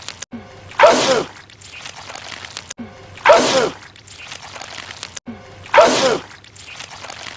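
A man's loud sneeze, the same sneeze repeated three times about two and a half seconds apart, each one sudden and falling in pitch.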